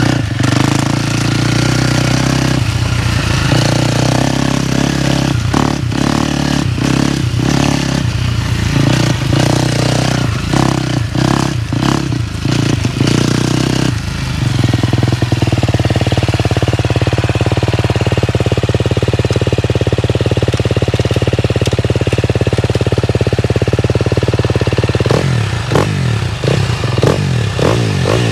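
2023 KTM 250 SX-F's single-cylinder four-stroke engine running, revved in quick throttle blips. From about halfway it runs steadily for some ten seconds, then is blipped again near the end.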